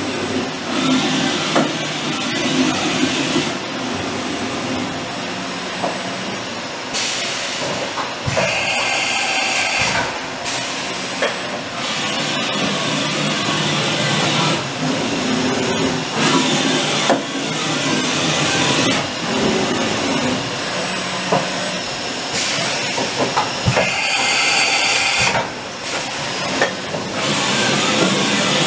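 Hurco VMX42 vertical machining center moving its table through axis traverses: a mechanical whir that changes every second or few seconds as each move starts and stops. Two of the moves carry a higher whine, about eight and twenty-four seconds in.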